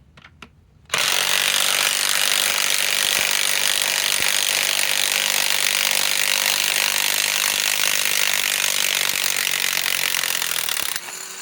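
DeWalt DCF891 cordless mid-torque impact wrench hammering continuously for about ten seconds as it backs a long lag screw out of wood, then stopping.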